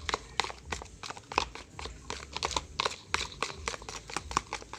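Slime made from foam glue, liquid soap and gom activator being stirred and worked as it clumps, giving many short, irregular sticky clicks and squelches, several a second.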